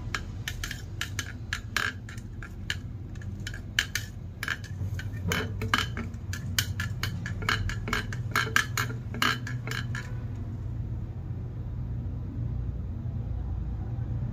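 Kitchen knife blade clinking and tapping against the inside of a clear tumbler as it stirs chunks of beetroot in water: rapid, irregular clicks that stop about ten seconds in, over a low steady rumble.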